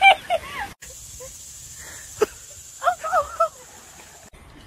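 A person laughing in quick, wheezy bursts that cut off under a second in. What follows is quieter: a steady high hiss, one sharp click, and a short burst of voice just past the middle.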